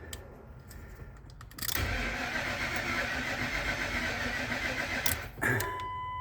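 A 2003 Ford Excursion's starter cranks the engine for about three seconds without it catching, then stops; the mechanic thinks the truck is out of fuel. A short steady tone sounds near the end.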